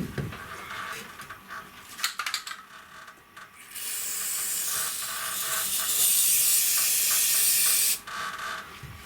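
Rocker guard coating being sprayed onto the rivets and seams, a steady hiss lasting about four seconds that stops suddenly. It comes after a few short clicks and knocks.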